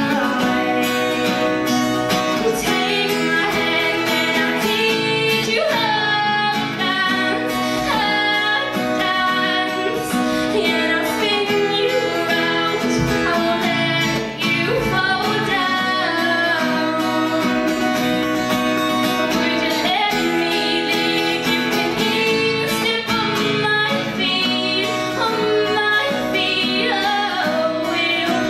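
A female voice singing a song live through a microphone, accompanied by a single acoustic guitar.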